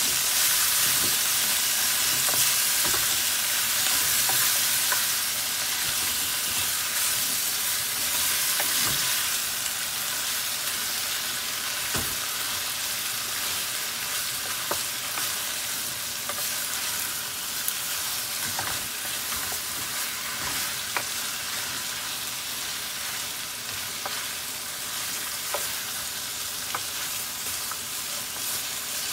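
Shredded salted fish, onion and garlic sizzling in hot oil in a stainless steel pot while a wooden spoon stirs them, with scattered sharp knocks of the spoon against the pot. The sizzle is a little louder for the first ten seconds or so, then eases slightly.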